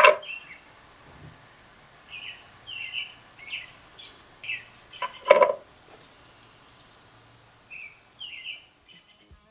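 A small songbird chirping repeatedly in short, downward-slurred notes, with a brief, louder sharp sound about five seconds in.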